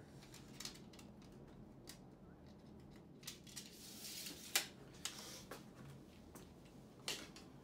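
Steel tape measure retracting with a short rasp about four seconds in and snapping shut with a sharp clack, among scattered light clicks and taps of handling the tape and pencil against the wooden studs.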